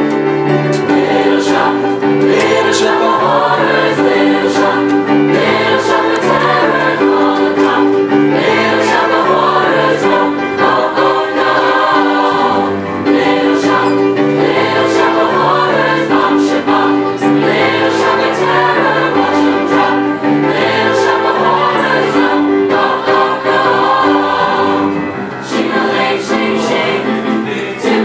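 Choir singing together with instrumental accompaniment over a steady, repeating bass line.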